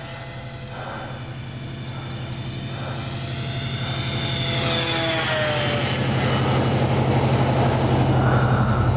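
Electric RC model Corsair in flight: its motor and propeller whine grows steadily louder as the plane comes closer, and the pitch drops about halfway through as it passes.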